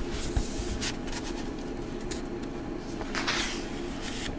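Quiet room tone: a steady low electrical hum, with a few faint clicks and a soft rustle about three seconds in.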